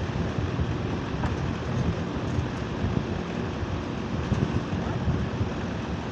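Split-type air conditioner's outdoor unit running: a steady rushing noise with a low rumble underneath.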